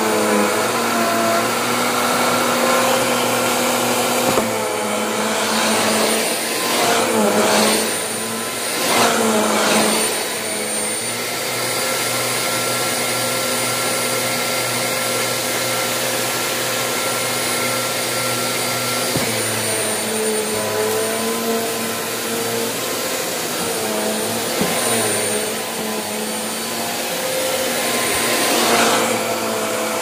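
Hoover Elite Rewind upright vacuum cleaner running on carpet: a steady motor hum with a high whine. It grows louder a few times, briefly, as the head moves over the carpet, about six to ten seconds in and again near the end.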